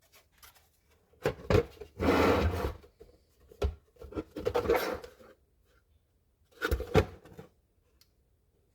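Hard plastic parts of a vehicle tail light assembly being handled and fitted together: a few sharp clicks and knocks with scraping and rubbing in between, in four separate bouts.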